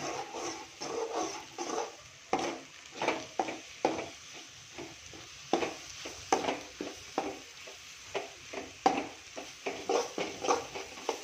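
Flat spatula stirring and scraping scrambled egg around an aluminium kadai, in quick uneven strokes about two a second, with occasional sharp knocks against the pan.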